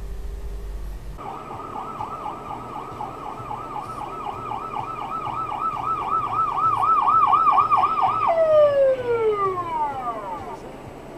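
Emergency-vehicle siren in fast yelp, its pitch rising and falling about four times a second and getting louder. Near the end the yelping stops and the pitch slides steadily down as the siren winds down. Before the siren, a low vehicle rumble cuts off abruptly about a second in.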